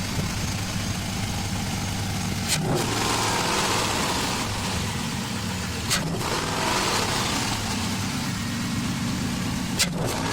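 A 2011 Chevrolet Silverado's engine running with its mid muffler deleted, a steady low drone through the louder exhaust. Three brief sharp knocks cut across it, about two and a half, six and ten seconds in.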